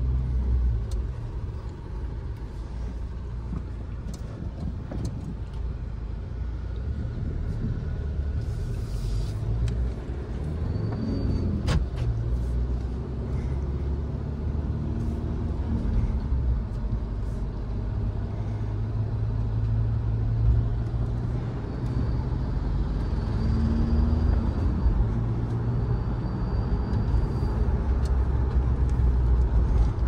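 Mahindra Scorpio turbodiesel engine heard from inside the cabin while driving, a steady low drone that grows louder in the second half. A faint high turbo whistle comes and goes several times, and there is one sharp click near the middle.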